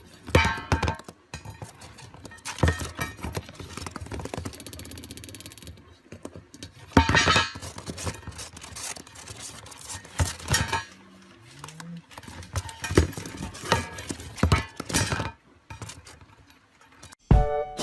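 Irregular clicks, knocks and rattles, with a few short pitched calls among them. Music starts just at the end.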